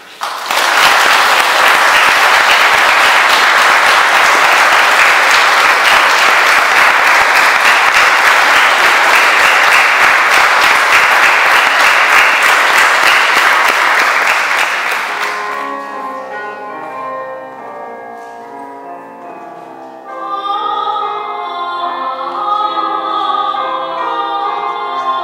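Audience applauding steadily for about fifteen seconds, fading out. A Roland digital piano then starts an introduction, and a woman begins singing in classical style about five seconds later.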